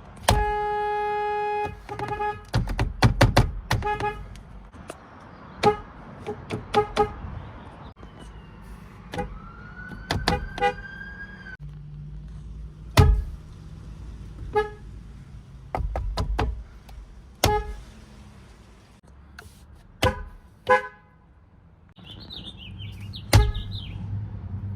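Nissan/Infiniti car horns sounded clip after clip: one long steady honk of about a second and a half near the start, then many short toots, singly and in quick pairs.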